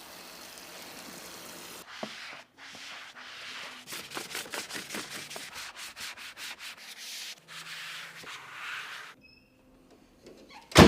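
Scrubbing or rubbing strokes on a surface, many in quick succession, as in cleaning during car detailing. They stop about nine seconds in, and one sharp loud knock comes near the end.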